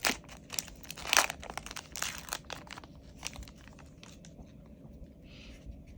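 Foil booster-pack wrapper crinkling and tearing open, a quick run of sharp rustles that is loudest in the first few seconds and then thins to faint handling noise.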